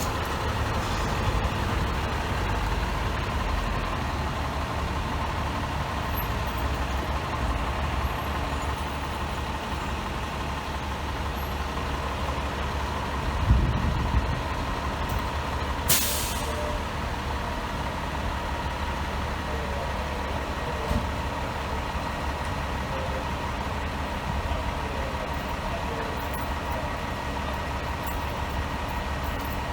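A fire truck's diesel engine idling steadily, with a low thump about 13 seconds in and a short, sharp hiss of air brakes a few seconds later.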